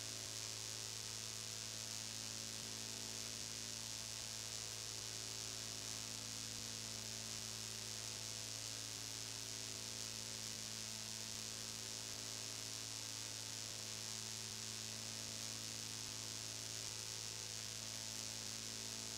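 Broadcast dead air recorded on VHS: a steady low electrical hum with a ladder of fainter higher tones above it, under a constant bright hiss.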